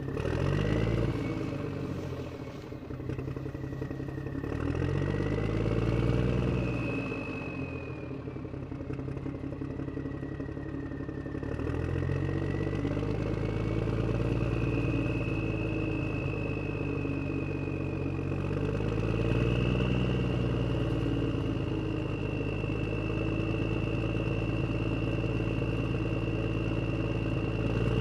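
An engine running, its pitch rising and falling several times as it speeds up and slows down, with a high whine riding over it.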